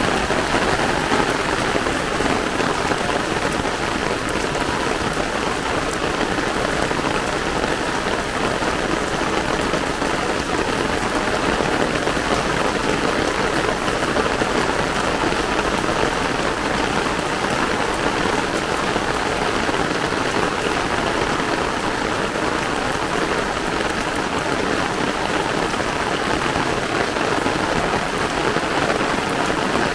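Heavy rain pouring down steadily onto a wet paved road and the ground around it, a dense, even wash of sound without a break.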